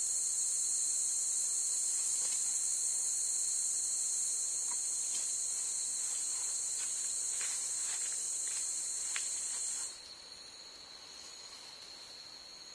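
Forest insect chorus: a dense, steady high-pitched buzz that cuts off abruptly about ten seconds in, over a fainter, continuous thin high whine. A few faint rustles and clicks come through in the middle.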